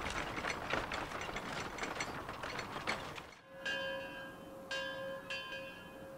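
Film soundtrack: a dense, irregular clatter of sharp knocks and clicks for about three seconds. Then, after a brief lull, a held musical tone with overtones, sounded repeatedly in short phrases.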